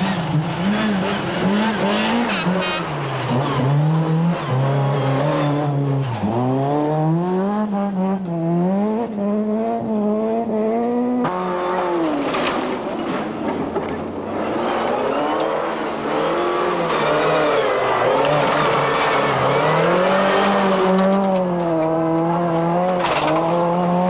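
Skoda Felicia Kit Car rally engine revving hard, its pitch rising and falling again and again with throttle and gear changes. The sound cuts abruptly about eleven seconds in to another car's engine, doing the same.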